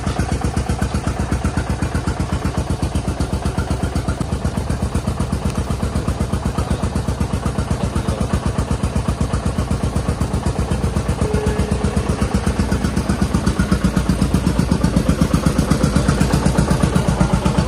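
New Holland 3630 tractor's diesel engine running steadily with an even pulse, a little louder in the last few seconds.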